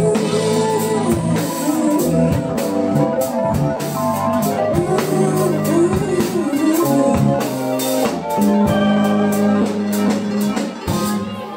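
Live neo-soul band playing: drum kit and electric guitar with sustained chords, heard from the audience.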